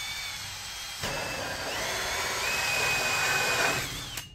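AEG cordless drill spinning a hole saw through the wall of a duct tube. The motor whine steps up in pitch partway through, and the cutting noise gets louder while the saw bites. It spins down and stops shortly before the end.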